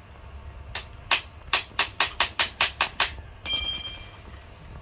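Metal parts of a children's bike being fitted by hand: a quick run of sharp clicks, about five a second, then a short, bright metallic ring like a small bell.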